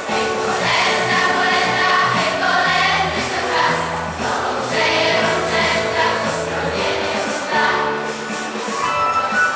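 Choir singing a Polish Christmas carol (kolęda), the voices holding long notes.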